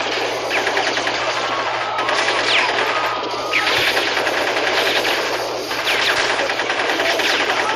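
Film sound-effect automatic gunfire: machine-gun fire in long rapid bursts, with brief breaks about a third and two-thirds of the way through, and short whining glides laid over it like bullet ricochets.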